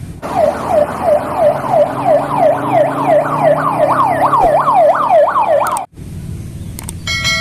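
Ambulance siren in a fast yelp, its wail sweeping up and down about two and a half times a second, cut off abruptly near the end.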